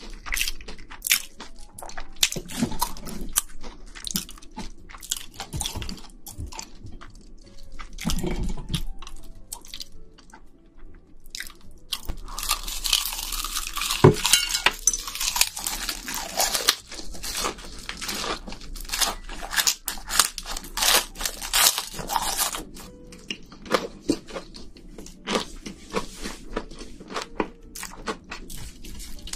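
Close-miked crunching and chewing of deep-fried battered shrimp: crisp coating crackling in sharp, irregular bites. There is a dense stretch of heavier crunching about halfway through.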